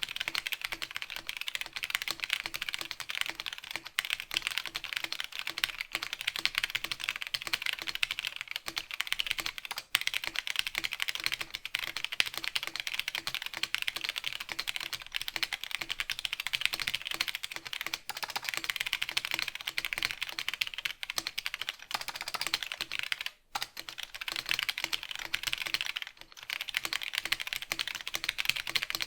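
Fast, continuous typing on a cardboard-cased 60% mechanical keyboard with linear red switches: a dense stream of key clacks, broken by brief pauses about 23 and 26 seconds in.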